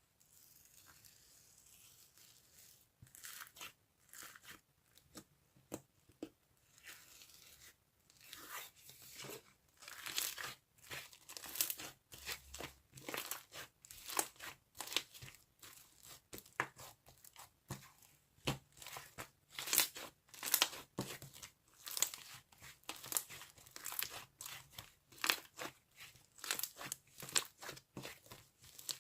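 Mango slush slime being squished and pressed by hand, giving many sharp, irregular crunchy crackles and pops. It starts faint and grows denser and louder after the first several seconds.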